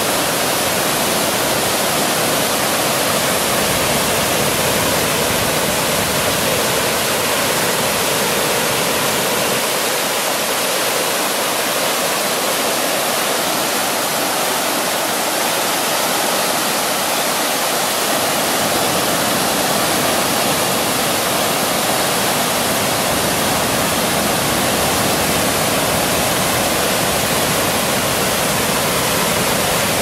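River water pouring over a low curved concrete weir and churning through the rapids below: a loud, steady rush of water.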